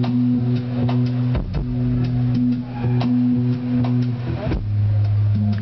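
A rock band playing a slow song live, heard from the audience: held bass notes that shift pitch twice, sustained guitar tones and light percussive strokes.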